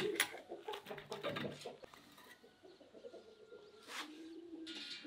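Short metallic clinks and rattles from a wire grill basket being handled on a wooden board, with a bird cooing.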